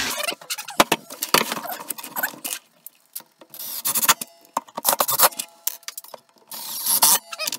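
Clatter and knocks of a cast-metal drill stand and its vise being handled on a wooden workbench, with short whirring bursts of a cordless drill-driver as the stand's base is fastened down to a piece of worktop.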